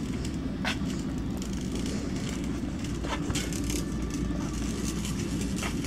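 Shopping cart rolling across a store floor: a steady rumble from its wheels and a rattle from the wire basket, with a few faint clicks.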